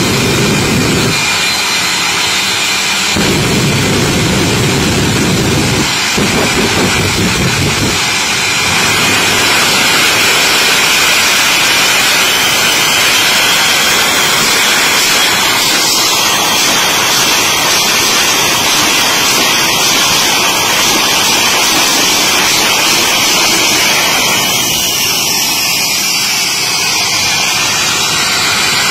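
Shockwave jet truck's turbojet engines running loud, a steady jet blast with a whine that glides up and down in pitch. The low rumble cuts out briefly twice in the first few seconds.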